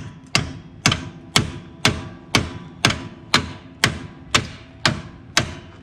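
Hand hammer striking steel on a car's front suspension, about two blows a second with a short ring after each, hammering to break a tapered joint loose without a pickle fork.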